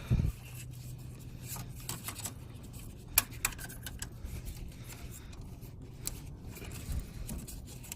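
Oil filter wrench being fitted to and worked on a car's spin-on oil filter: scattered clicks, light knocks and scrapes of metal tool on the filter. There is a low thump at the start and a sharp click about three seconds in.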